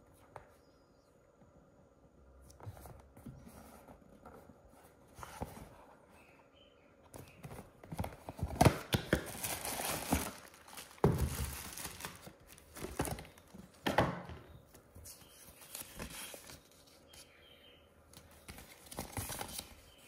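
Irregular rustling and crinkling of something being handled, with louder bursts in the middle stretch.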